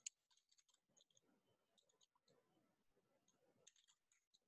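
Faint computer keyboard keystrokes: scattered short clicks in small clusters as text is typed, with near silence between them.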